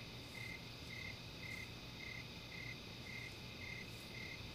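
Faint cricket chirping steadily, short chirps about twice a second, over a low steady hum.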